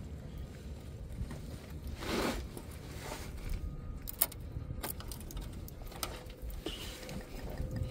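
A few faint clicks and knocks from gloved hands working the fuel-line quick-connect fittings and clips at a fuel filter under a truck, over a low background rumble.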